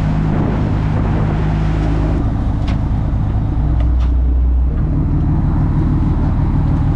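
A commercial lobster boat's engine running steadily under way, a low hum with the rush of churning wake water over it, and a couple of light knocks around the middle.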